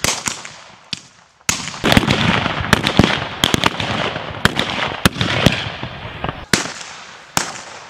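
Rapid, irregular blank gunfire from revolvers and rifles in a staged gunfight, sometimes several shots within a second. After a short lull about a second in, the shooting is dense, then thins to a few single shots near the end.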